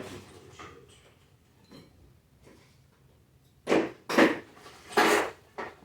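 Plastic vacuum parts being handled: after a quiet stretch, four short, loud knocks and rubs come in quick succession near the end.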